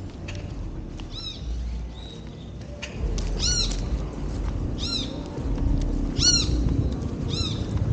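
An animal calling repeatedly: five short, high, rising-then-falling calls about every second and a half, over a low rumble.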